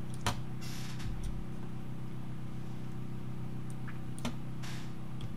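A few sharp computer mouse clicks and keystrokes, one about a third of a second in and another about four seconds in, over a steady low electrical hum.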